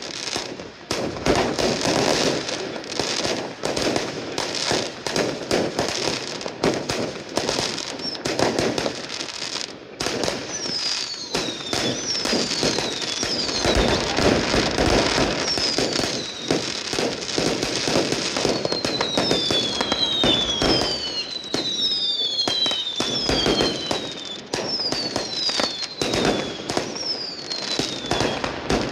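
Fireworks display: aerial shells bursting in quick succession with bangs and crackling. From about a third of the way in, a run of falling whistles is mixed in.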